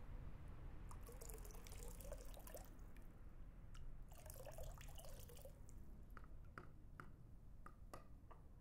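Faint water at a shrine's temizuya hand-washing basin: two spells of splashing and trickling, then separate drops dripping.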